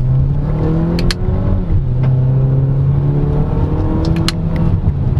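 Peugeot 3008's turbocharged 1.6 THP four-cylinder engine accelerating hard, heard from inside the cabin. Its note rises, drops at an automatic upshift, rises again and drops at a second upshift before climbing once more.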